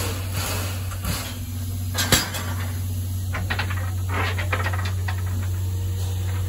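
Standing C11 steam tank locomotive with steam up: a steady low hum, and a hiss of steam that dies away after about a second. A sharp metallic clack comes about two seconds in, then light metallic clicks as the driver works the valve handles in the cab.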